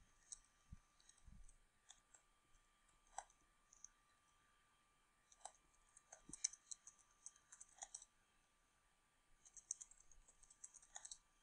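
Faint, scattered keystrokes on a computer keyboard while text is typed, some in quick little runs, over a faint steady high tone.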